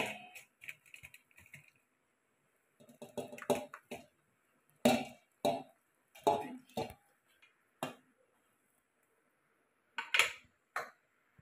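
A metal spoon clinking and scraping against a steel pressure cooker as cooked chicken biryani is scooped and turned. There are about nine separate strokes, irregularly spaced, the loudest at the start.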